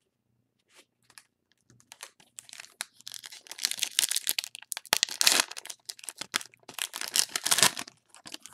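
Foil trading-card pack wrapper being torn open and crinkled by hand: a dense crackling rustle that starts about two seconds in, with two loudest stretches, and fades near the end.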